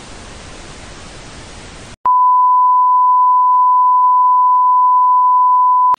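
Television static hiss for about two seconds, then an abrupt switch to a loud, steady, single-pitch test-pattern beep, the tone that goes with colour bars.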